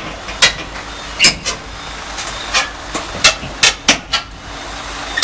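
Steel crawler tracks of a Doosan DX225LCA excavator moving on a truck trailer's steel deck: about nine sharp metallic clanks at uneven intervals over the machine's steady running noise.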